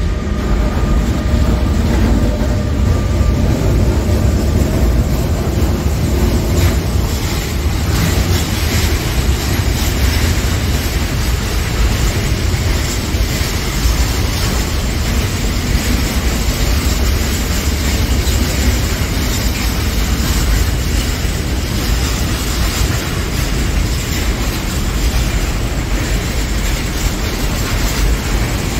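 Container freight train hauled by an E483 electric locomotive passing close by: a loud, steady rumble and rattle of wheels on rails as the container wagons roll past, with a faint steady tone in the first few seconds that fades away.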